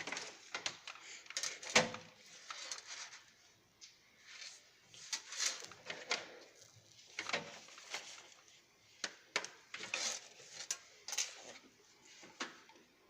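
Irregular clicks and knocks of cables and plugs being handled and plugged into a desktop computer, the loudest about two seconds in.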